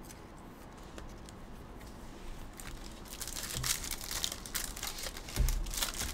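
Foil trading-card pack wrappers crinkling and being torn open, getting busier from about two and a half seconds in, with a soft thump near the end.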